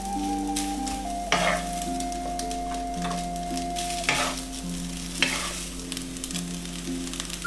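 Sausage fried rice sizzling in a pan as it is stirred, with a few sharp scrapes or knocks of the spatula against the pan, three of them stronger than the rest.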